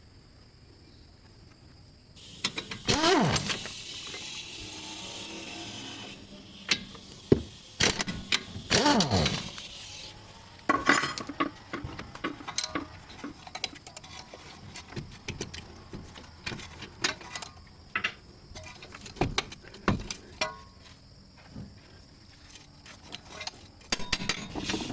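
Repeated metallic clinks and knocks. Two longer squeaky sweeps in pitch come about three and nine seconds in.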